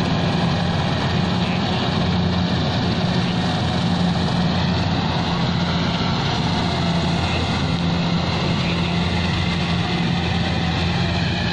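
Rice combine harvester's engine running steadily as it works the field, a constant hum.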